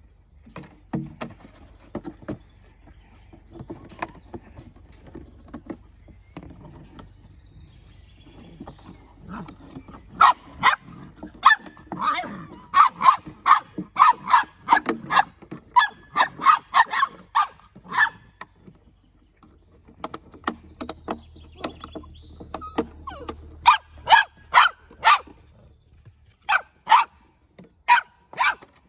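Puppies barking in sharp yips. Softer play sounds come first, then a long fast run of barks at about three a second, and a few more barks near the end.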